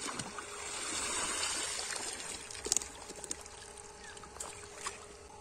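Shallow muddy water splashing and sloshing as a bamboo basket is scooped through it, loudest about a second in and then easing off. There are a few sharp knocks a little past the middle, over a faint steady hum.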